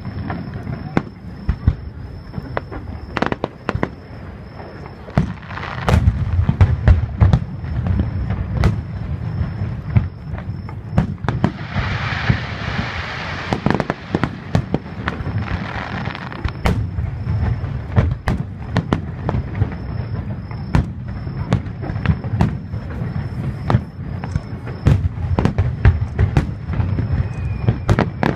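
Aerial fireworks shells bursting in quick succession: many sharp bangs and cracks over a continuous low rumble. About halfway through comes a few seconds of hissing crackle.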